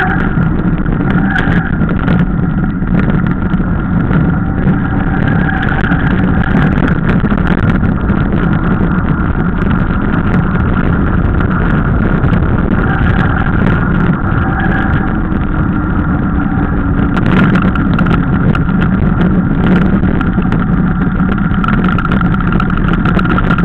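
Mountain bike descending fast on rough, broken asphalt: steady wind rush on the camera microphone and tyre rumble, with frequent rattles and knocks as the bike goes over the bumps. A faint high-pitched tone comes and goes throughout.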